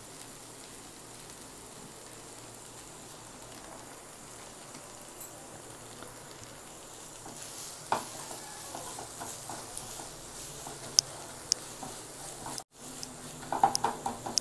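Onions and mushrooms frying in a nonstick pan with a steady, quiet sizzle. From about eight seconds in, a wooden spatula stirs them, knocking and scraping against the pan in irregular clicks.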